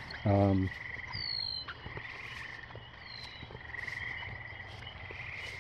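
A chorus of frogs trilling steadily at dusk. Two short falling whistles sound over it, about a second in and again about three seconds in.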